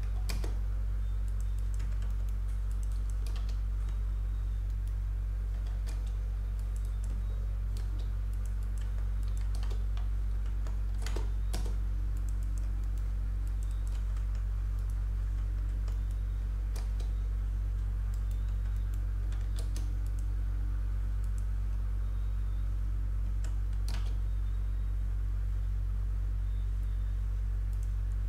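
Scattered clicks and keystrokes on a computer keyboard and mouse, a few at a time with gaps between, over a steady low hum.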